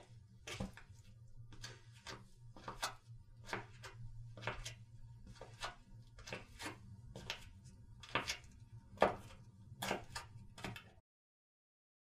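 Footsteps walking at an even pace, about two steps a second, each a short sharp impact over a faint low hum. They stop abruptly near the end.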